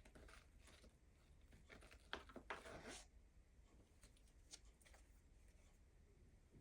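Faint rustling of tarot cards being handled and shuffled, a few soft brushes about two to three seconds in and a light click later, otherwise near silence.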